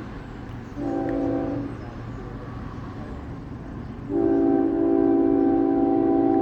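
Approaching freight locomotive's Nathan K5HL five-chime air horn, on the lead GE ES44AH: a short blast about a second in, then a long blast from about four seconds in, held to the end. A steady low rumble of the oncoming train runs underneath.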